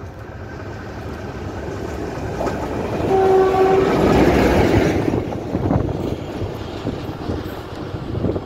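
SM42 diesel shunting locomotive running light past at close range, giving a short horn blast as it draws level, about three seconds in. Its engine and wheel noise swell to a peak as it passes and then fade, with wheel clicks on the rails trailing off.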